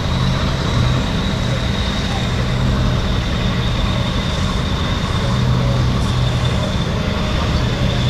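Diesel engines of a Gepard-class fast attack craft running steadily as it manoeuvres slowly: a constant low hum, with a thin steady high whine above it.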